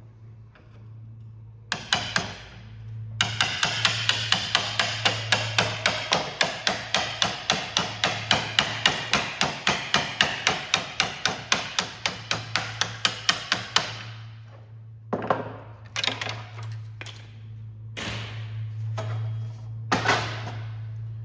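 Hammer blows in a fast, even run of about four strikes a second for some ten seconds, with scattered single knocks before and after: knocking the worn sleeve off a Concept2 oar shaft. A steady low hum runs underneath.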